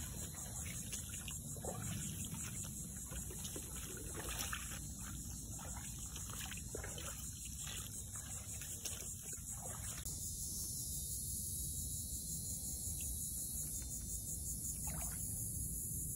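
Footsteps wading through shallow swamp water, with irregular sloshes and splashes, over a steady high-pitched insect chorus. About ten seconds in, the wading stops and only the insect chorus remains.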